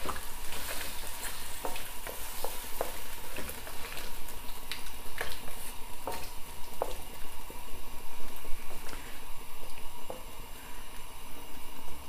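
Chicken and potatoes in a soy-based sauce sizzling in a wok over high heat as the added water heats toward the boil, stirred with a wooden spatula that taps and scrapes against the wok, the taps thinning out near the end.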